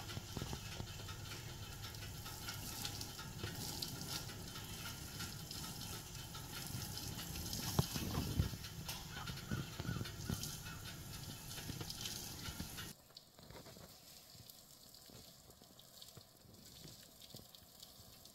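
Garden hose spray nozzle hissing as water is sprayed onto freshly planted ground. The spray stops abruptly about 13 seconds in, leaving a quiet outdoor background.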